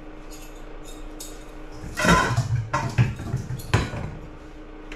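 A stainless steel bowl and forks clattering on a kitchen counter: a run of sharp metallic knocks and clinks starting about two seconds in.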